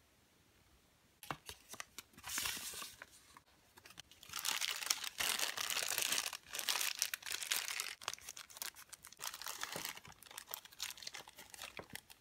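Small clear plastic bag crinkling and crackling as it is handled in the fingers, loudest from about four to eight seconds in, with lighter crackles before and after.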